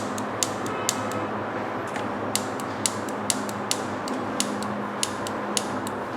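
An EMP jammer running beside a coin acceptor under test. A steady hiss is broken by sharp, short clicks at uneven spacing, about two a second.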